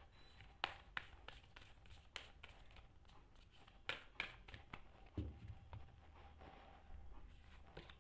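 Faint hand-shuffling of an oracle card deck: scattered sharp clicks and slaps of cards against each other, with a soft low thump about five seconds in.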